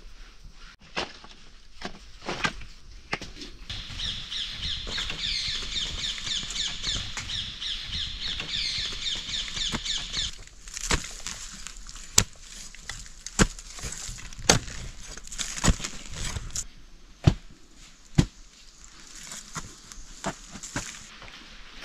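A bird sings a fast, repeated high trill for several seconds. Then come a series of sharp cracks and knocks about a second apart, over the rustle of dry leaves and sticks being handled.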